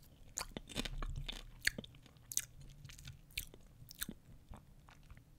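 A person chewing Frito-Lay Mike Popcorn: faint, irregular crunches of the popped kernels.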